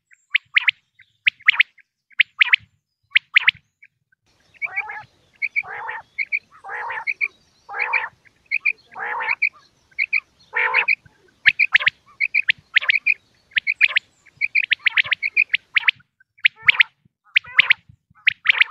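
Common quail calling over and over in short, sharp notes grouped in quick runs. Between about five and eleven seconds in, longer, lower and rougher calls come in among the short notes. This is the kind of recording played as a lure for netting quail.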